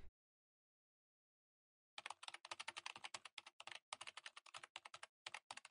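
Computer keyboard typing sound effect: after about two seconds of silence, a rapid run of keystroke clicks, several a second with short pauses, that goes on to the end.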